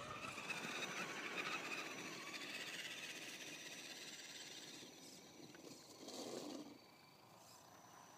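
Electric RC rock crawlers (Axial Wraith and SCX10) driving through snow, their motors and drivetrains whining with tyre noise in the snow, growing fainter as they move away. A short louder burst comes about six seconds in.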